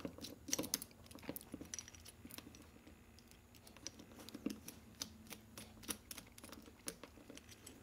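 Faint, irregular small clicks and ticks of a precision screwdriver working tiny screws out of a small aluminium block, with the little metal parts being handled.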